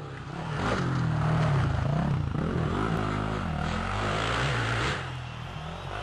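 Motocross dirt bike engines revving, the pitch rising and falling again and again as the riders work the throttle over the jumps. It grows loud about a second in and eases off near the end.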